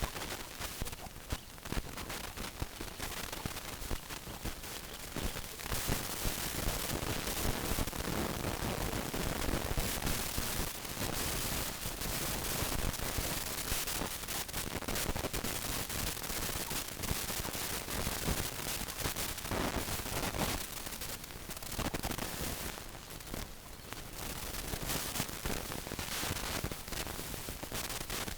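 Chickens pecking and scratching at feed: dense, rapid clicking and rustling over a steady hiss.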